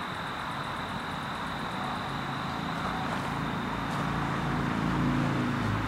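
A motor vehicle's engine running and slowly getting louder over road noise, with a thin steady high-pitched tone throughout.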